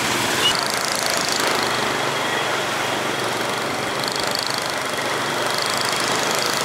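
Steady engine noise of road traffic.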